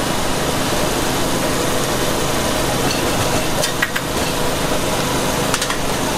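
Steady roar of a gas wok burner under a large wok of instant noodles steaming in sauce, with a few sharp metal clinks of a ladle against the wok around the middle and near the end.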